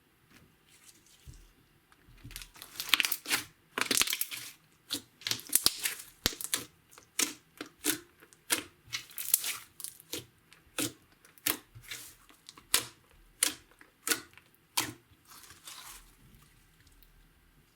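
Slime mixed with makeup and glitter being squished and worked by hand, giving a rhythmic run of crackling, squelching pops about one and a half a second. The pops start about two seconds in and die away near the end.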